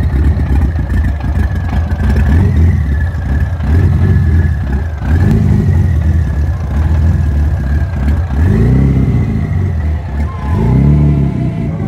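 BMW N54 twin-turbo inline-six engine running, with a steady whine over the engine note and a few brief revs.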